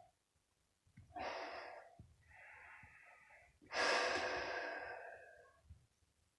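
Three breathy hisses from young raccoons in a bathtub, the third about four seconds in the loudest and longest, fading slowly.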